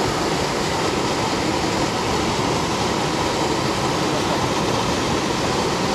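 Steady rush of river water flowing over and churning against rocks, an even noise without a break.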